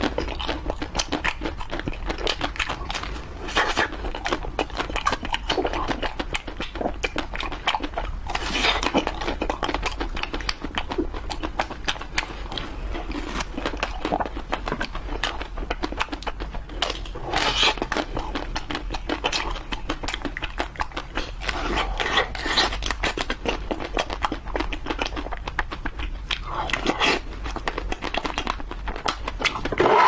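Close-miked eating sounds: a person biting into and chewing frozen ice-cream bars on sticks, a dense, steady run of crunches and wet mouth clicks over a low steady hum.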